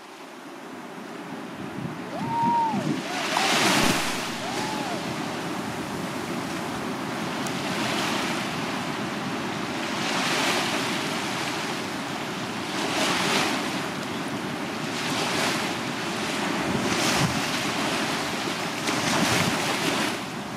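Small waves breaking on a sandy beach and washing up the shore, the surf swelling into a louder rush every two to three seconds.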